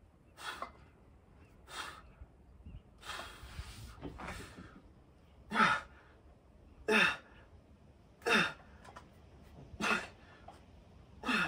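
A man's strained breathing during a set of seated overhead dumbbell tricep extensions taken to failure: a sharp exhale or short grunt falling in pitch with each rep, about one every one and a half seconds, louder from about halfway through.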